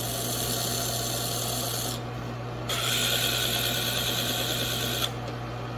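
Steel chisel bevel being ground against a sandpaper disc spinning in a drill press, refreshing the chisel's bevel: a steady scraping in two passes, with a short break about two seconds in and a louder second pass that stops about five seconds in. A steady low hum runs underneath.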